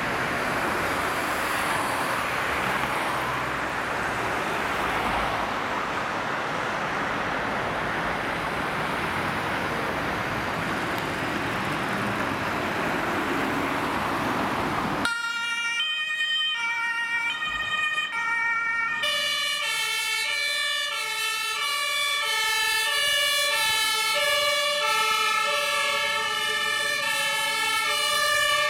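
Steady street and traffic noise. About halfway through it gives way abruptly to the two-tone sirens of several German fire service vehicles sounding together. Their alternating high and low notes overlap at different pitches as the turnout leaves the station.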